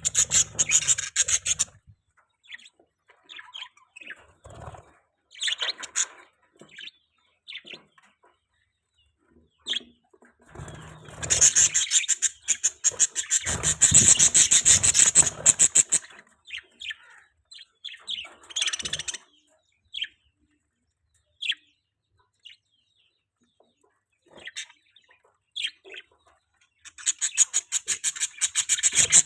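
Budgerigar chirping and chattering: fast runs of high chirps about a second in, for several seconds in the middle, and again near the end, with single short chirps between.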